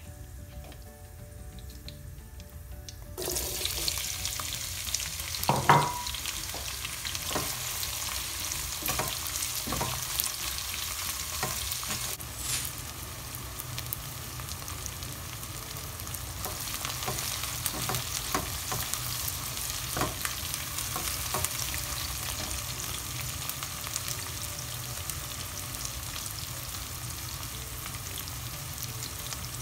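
Sliced onions hitting hot oil in a pan, starting a loud sizzle suddenly about three seconds in that carries on steadily as they fry. A spatula knocks and scrapes against the pan while the onions are stirred, with the sharpest knock a few seconds after the sizzle begins.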